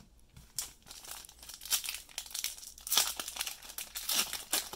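Foil trading-card pack wrapper crinkling as it is crumpled and twisted between the fingers, in a series of irregular crackles.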